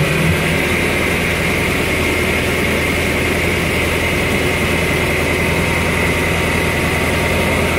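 5.7-litre MerCruiser V8 marine engine running steadily at a fast idle in neutral, with no change in speed.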